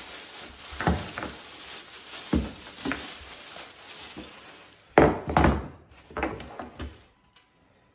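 A series of knocks and clatters of hard objects being handled, with the loudest, busiest stretch about five seconds in, dying away near the end.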